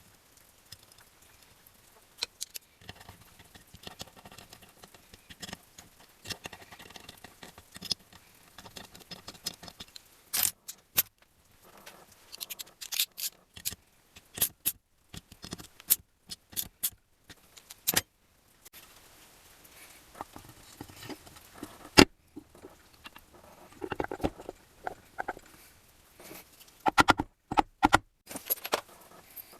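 Small metal engine parts and hand tools clinking, tapping and scraping on a workbench during engine assembly. The clicks come at irregular intervals, with one sharp knock near the middle and a quick run of clinks near the end.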